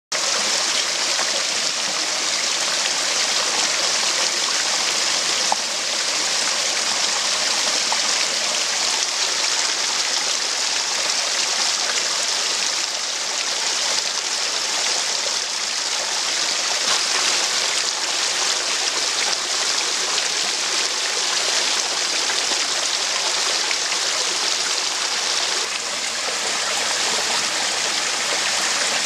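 Stream water rushing over rock ledges and small waterfalls into a shallow pool: a steady, even hiss of moving water.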